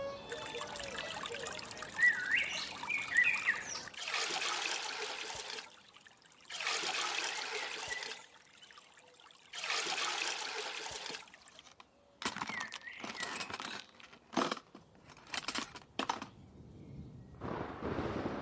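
Water pouring in three runs of a second or two each, then a string of short splashes, as water is drawn and poured at a well.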